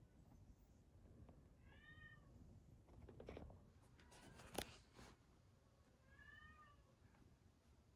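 A cat meows softly twice, about two seconds in and again about six seconds in, each a short call that rises and falls in pitch. Between the two calls come faint rustling and a sharp click about four and a half seconds in.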